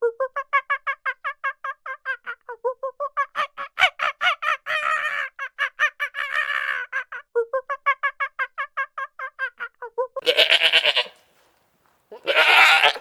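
Animal calls: a long rapid run of short repeated calls, about six a second, followed by two longer, harsher bleat-like calls near the end.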